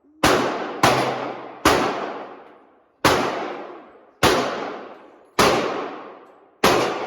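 Seven gunshots fired one at a time at an uneven pace, each a sharp crack followed by a long echoing tail that fades over about a second.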